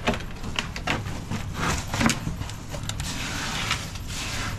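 Scrapes and knocks of shovels and tools working wet concrete, then a steady rush of concrete being poured for about a second and a half near the end.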